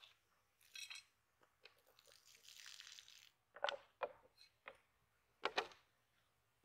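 Plastic drink bottle with water in it being handled: a rustle of its torn label, then sharp plastic crackles, loudest about three and a half and five and a half seconds in, as it is gripped and stood down.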